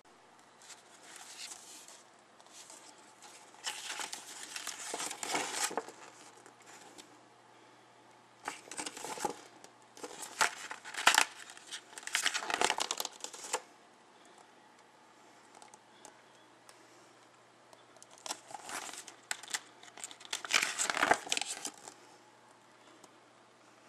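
Paper instruction booklets being handled and their pages turned. The pages rustle and crinkle in several bursts of a second or two, with quiet gaps between.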